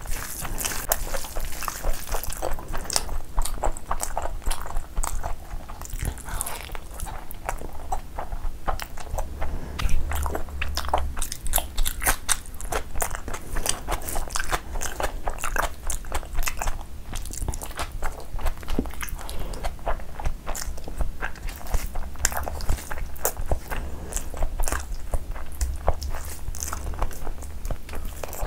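Close-miked chewing and biting of rice and spicy mutton curry eaten by hand: a dense, irregular run of quick wet clicks and crackles from the mouth.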